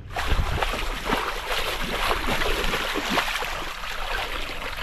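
Shallow water splashing and running in a muddy paddy-field channel as a fishing net is gathered and pulled up through it.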